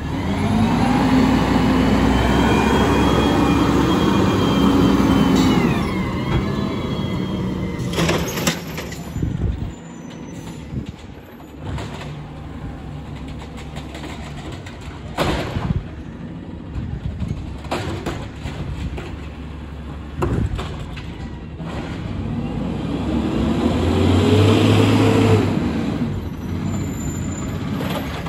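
Automated side-loader garbage truck at work. Its engine revs up and holds for about six seconds, then drops back, followed by a few sharp knocks and bangs. Later the engine climbs again as the truck pulls forward, with air brakes.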